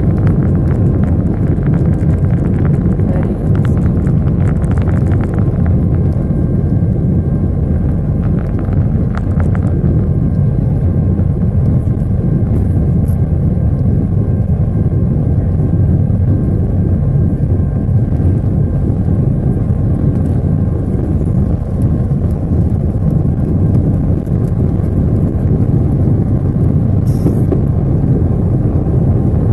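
Airbus A320 cabin over the wing during takeoff: the jet engines at takeoff power and the roll down the runway make a loud, steady, deep rumble. Rattles and knocks come through in the first several seconds.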